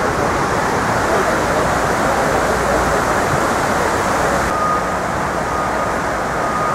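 Steady outdoor rushing background noise of the city, with a faint thin steady tone coming in about two-thirds of the way through.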